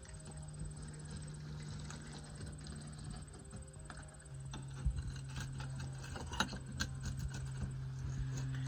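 Light knocks and clicks of handling work, mostly in the second half, over a steady low hum that drops slightly in pitch about four seconds in.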